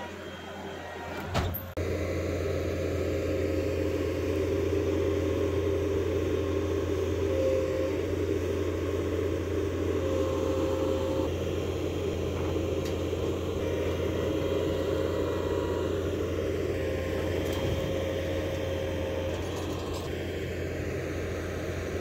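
Tracked skid steer's diesel engine running steadily under load while it shifts a large pine log onto a dump trailer, with a higher whine coming and going. The engine comes in sharply about two seconds in.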